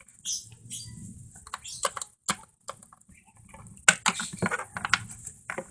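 Irregular sharp clicks and taps, several a second in places, with the loudest click about four seconds in.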